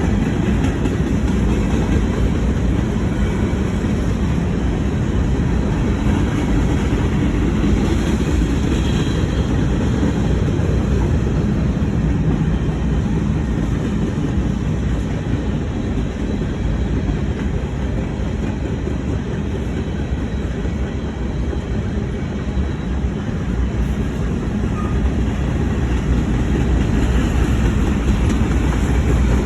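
Freight train's cars rolling past with a steady low rumble of wheels on rail.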